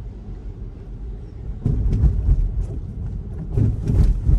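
Low road and tyre rumble inside a Tesla electric car driving on a wet street, with two louder rumbling swells, about two seconds in and again near the end.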